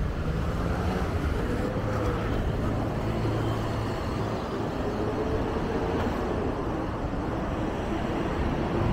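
Steady road traffic noise: car engines and tyres running past close by.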